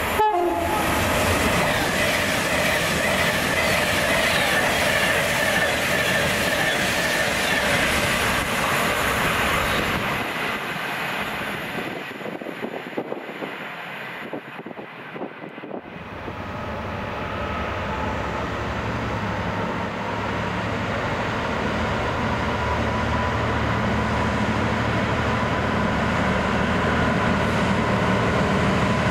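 A train passing through at speed, its wheels clattering over the rail joints and its pitch falling away before it fades to scattered clicks about halfway. Then a steady engine hum builds up as another train comes in.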